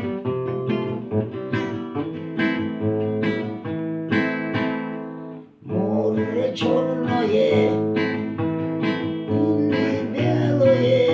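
Acoustic guitar picking single notes, then after a short break about five and a half seconds in, a voice sings the song over the guitar.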